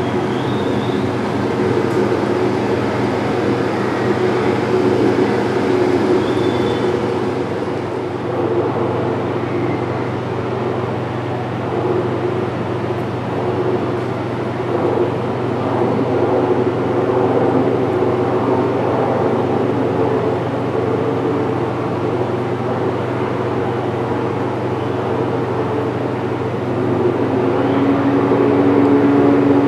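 Steady running noise of H0-scale model trains moving over the layout's track: a constant whirring hum.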